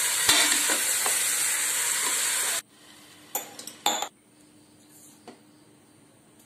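Chicken pieces sizzling in hot oil and masala in a pressure cooker while being stirred with a spoon. The sizzle cuts off suddenly about two and a half seconds in. After that the spoon knocks against the pot a couple of times.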